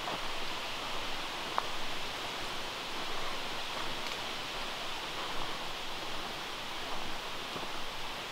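Steady rustling hiss of leafy forest ambience, with a single faint click about one and a half seconds in.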